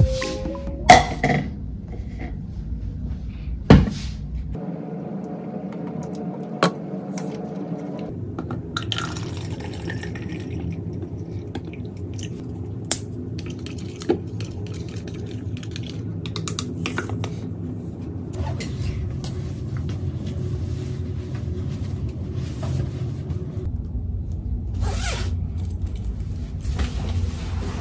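Electric kettle and tea-making sounds: a few sharp clicks, a steady hum of the kettle heating water, and water being poured into a cup, with a light tap of chopsticks stirring the tea.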